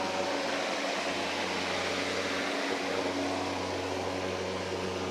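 Worx Nitro WG761E cordless lawnmower's electric motor and blade running steadily as a hum while mowing grass.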